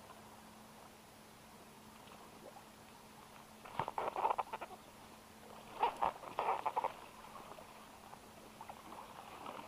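Fishing reel cranked in two short spurts about two seconds apart, each a quick run of dry clicks and ticks, as a lure is worked back across the water.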